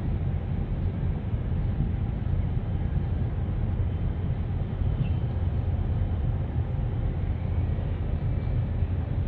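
Steady low rumble of a Capesize bulk carrier and its escort tug passing close by under power, with no sudden events.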